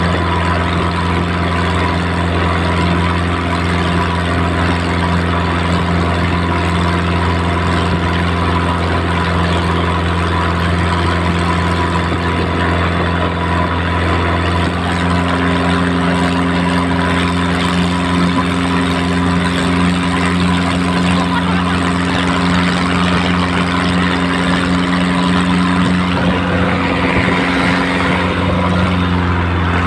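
Nissan TD27 four-cylinder diesel engine driving a wooden river boat under way at speed: a loud, steady drone with the rush of water and wind over it. Its pitch rises slightly about halfway through.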